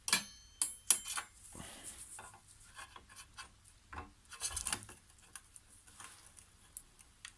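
A steel hedge trimmer blade being dropped onto the gearbox and worked into place: a string of light metal clinks, knocks and scrapes, the loudest near the start and again about four and a half seconds in.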